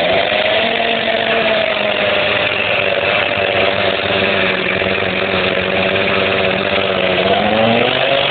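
Chainsaw running steadily at high speed while cutting, its pitch sagging and then climbing again near the end.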